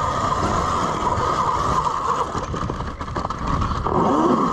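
Electric dirt bike's motor running with a steady whine, over rough noise from tyres on dirt and wind.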